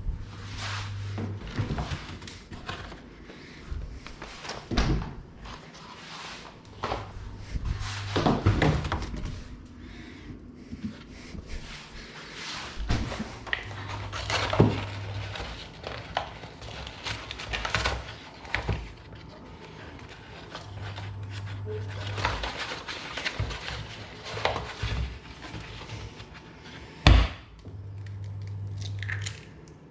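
Kitchen work sounds: utensils, dishes and pans clattering and thunking on wood, with a low hum that comes and goes every several seconds.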